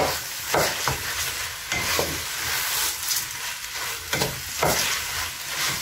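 Rice sizzling in the hot pilau mixture in a stainless steel pot while being stirred with a wooden spoon, with a steady hiss and a few irregular scraping strokes of the spoon.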